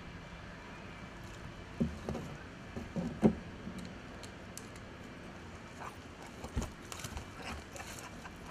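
Splashing and knocks as a landing net holding a bream is lifted out of the lake, the loudest knock about three seconds in, followed by a few lighter taps and clicks.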